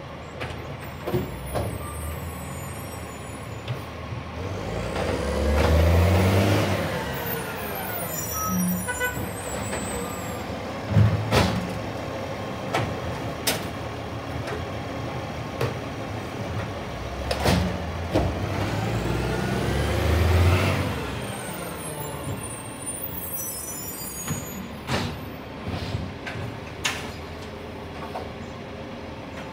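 Diesel side-loader garbage truck running while its automated arm empties wheelie bins: the engine rises and falls in pitch twice as it drives the lifting arm, with sharp knocks from bins and the arm in between.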